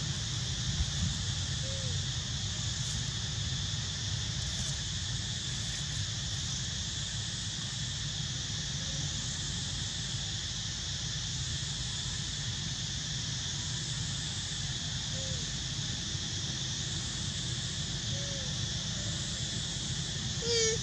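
Steady outdoor ambience of insects droning in a constant high band over a low rumble, with a few faint short calls, the loudest just before the end.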